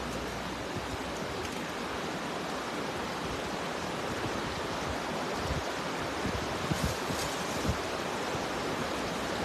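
Steady, even rushing outdoor background noise at the water's edge, with a few faint knocks and rustles in the second half.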